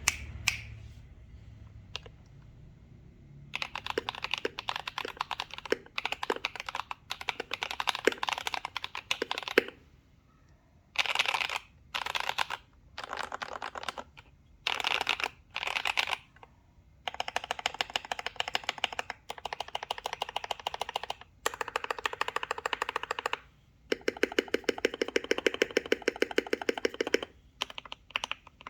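Akko 3061S mechanical keyboard with lubed Akko CS Lavender switches, a foamed case and PCB and modded stabilisers, typed on in fast runs of keystrokes broken by short pauses. Only a few scattered key clicks for the first few seconds.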